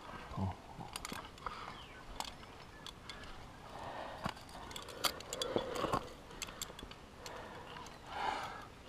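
Metal climbing gear (cams and carabiners on a harness rack) clinking and clicking irregularly as a climber moves up a granite slab, with a few short effort sounds from the climber's voice, the loudest near the end.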